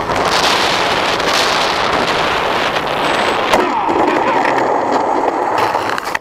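Wind rushing over the onboard microphone of a landing RC plane, with a knock about three and a half seconds in as it touches down. It then scrapes and rattles along the ground, with a faint steady whine, until the sound drops off at the very end.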